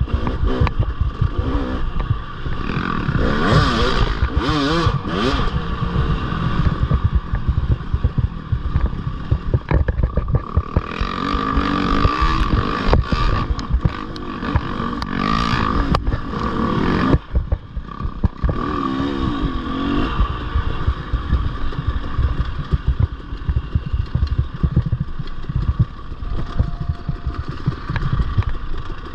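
Off-road motorcycle engine on a race trail, its revs rising and falling constantly, with clattering and scraping from the bike over rough ground. There is a brief lull a little over halfway through.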